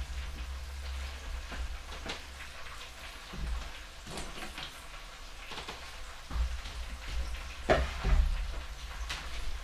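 Oil sizzling steadily in an electric deep fryer, with a few light knocks on a wooden cutting board.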